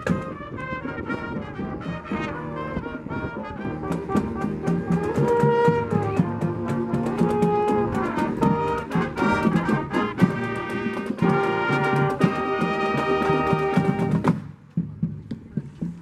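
Marching band brass section (trumpets and trombones) playing held notes over a steady beat while marching. Near the end the brass drops out, leaving only sharp beats.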